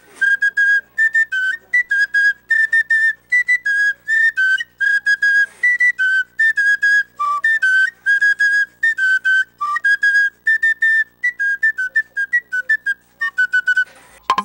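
A small hand-held flute played solo in quick, short piping notes. It hops between two or three high pitches, with a couple of lower notes dropped in partway through.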